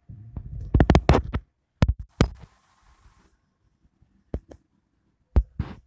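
A series of short, sharp clicks and knocks: a quick cluster about a second in, then pairs near two seconds, around four and a half seconds and near the end.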